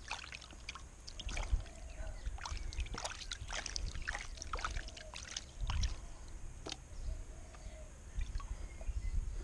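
Water swirling and sloshing in a gold pan, with sand and gravel rattling and many irregular sharp clicks, as concentrates are panned down by hand.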